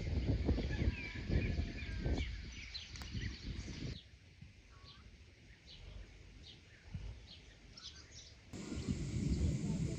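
Small birds chirping repeatedly over a low rumbling noise that stops abruptly about four seconds in and comes back near the end.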